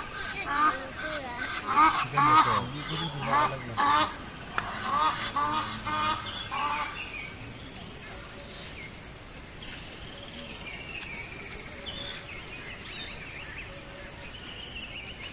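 Honking bird calls, many short calls in quick runs over the first seven seconds or so.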